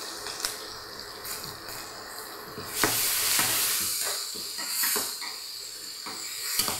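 Hot oil in a kadai sizzling through a tempering of mustard seeds, dal and curry leaves, with a loud burst of sizzling about three seconds in as chopped green chillies go into the oil, fading over the next couple of seconds. Light clicks and scrapes of the stirring spoon against the pan come through now and then.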